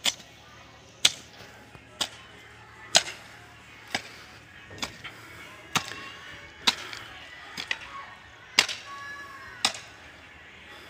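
Long-handled digging hoe (fawda) chopping into grassy soil, a sharp strike about once a second, eleven strikes in all.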